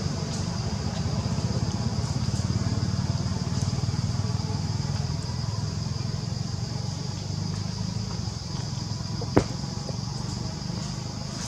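Steady low rumble of outdoor background noise with a thin, steady high whine above it, and one sharp click about nine seconds in.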